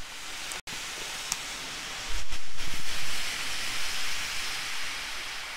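Flameless ration heater hissing steadily as it reacts with water inside its sleeve, heating the MRE pouches. The hiss swells louder for a moment about two seconds in.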